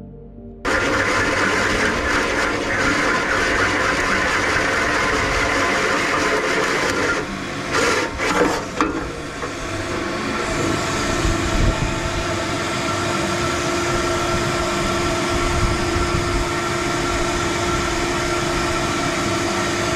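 Cordless drill driving a hole saw through the metal fuel tank of a 1999 Honda Valkyrie, a steady cutting whir that starts abruptly about a second in. It turns uneven for a couple of seconds near the middle, then runs on steadily.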